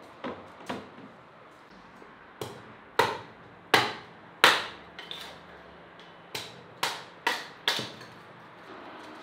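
Hatchet chopping kindling on a wooden block: two runs of sharp strikes, about four each, with a pause of over a second between them.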